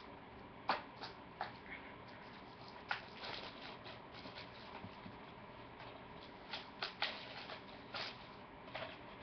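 Plastic DVD cases and their wrapping being handled and opened: faint scattered clicks and crinkles, a cluster about a second in and another a little before the end.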